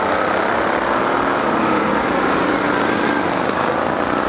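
Racing lawn mower engines running hard around the track, a loud, steady drone with pitch drifting slightly as the mowers go past.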